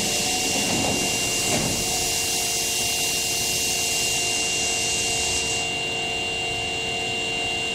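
Osaka Metro Tanimachi Line subway train running: a steady rushing noise with steady hum tones under it and a brief gliding tone about a second in. The high hiss eases a little about five and a half seconds in.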